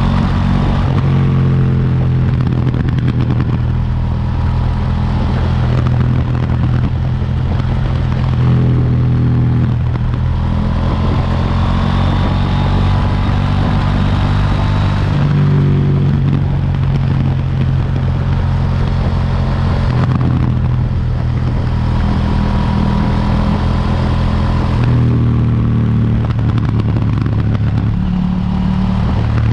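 KTM 790 Duke's 799 cc parallel-twin engine with its stock exhaust, running hard under way. Its pitch climbs and drops several times with throttle and gear changes.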